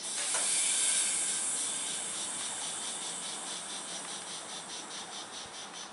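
Compressed air hissing from a standing Intercity train: a sudden loud hiss that slowly fades, pulsing about five times a second.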